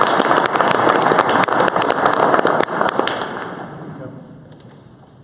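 Audience applause, loud and thick with claps, dying away about three to four seconds in.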